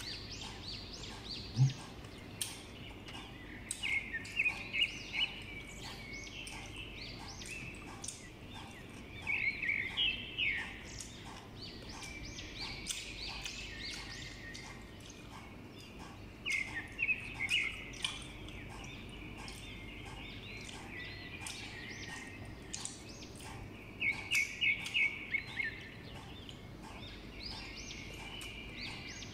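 A bird chirping in short rapid runs of four to six notes, four times, over faint crunchy clicks of green mango being chewed.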